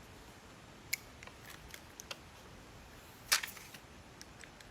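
A few small clicks and taps from handling the iPhone, the loudest about three seconds in, over quiet room tone.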